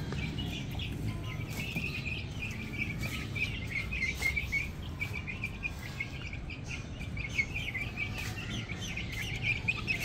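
Many small birds chirping, a dense and continuous twittering of short high calls, over a steady low background rumble.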